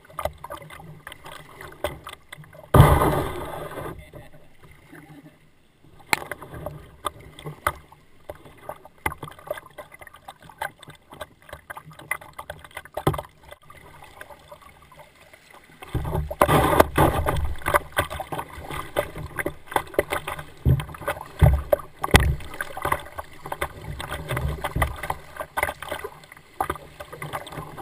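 Kayak being paddled down a shallow river: water splashing and gurgling around the bow, with paddle strokes dipping in. There is a sudden loud splash about three seconds in, and the water grows louder and choppier over the second half as the kayak runs through a riffle.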